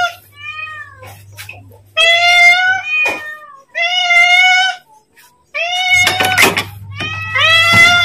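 A domestic cat meowing over and over, about five long, loud meows, calling for food.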